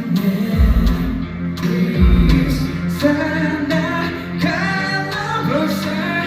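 A J-pop song performed live: singing over a pop backing with deep bass hits, played loud through a concert sound system.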